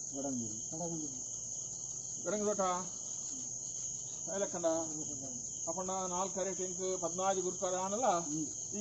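Crickets chirring in a steady, high, continuous drone, with a voice speaking or calling out briefly several times over it and more continuously near the end.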